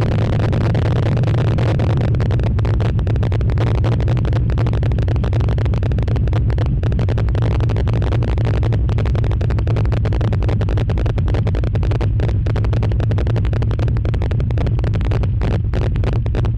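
Chevy V8 engine in a Nissan Frontier running at a steady speed, a loud, even low drone that holds one pitch throughout, with a crackly, distorted edge.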